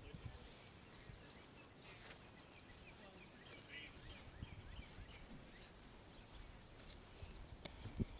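Quiet outdoor ambience with faint bird chirps over a soft low rumble, and a couple of sharp clicks near the end.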